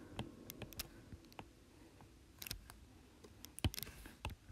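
Faint, irregular clicks and taps of a stylus on a tablet screen during handwriting, with a few sharper taps about two and a half and three and a half seconds in.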